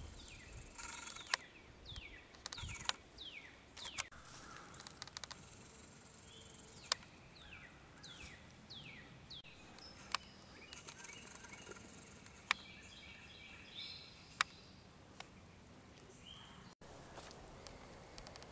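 Birds singing: many short whistled notes that slide down in pitch, with some buzzier notes higher up, over a faint outdoor background. A handful of sharp single clicks, the loudest sounds, stand out at spaced intervals.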